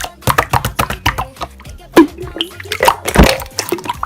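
Slime being squeezed and poked, giving quick, irregular wet clicks and pops, over background music.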